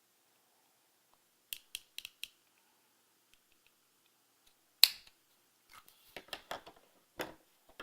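Plastic shell of a three-button key fob being pried apart at its side seam with a small flathead screwdriver: a few light clicks, then one sharp snap about five seconds in as the case pops open, followed by a string of quieter clicks as the loose halves are handled.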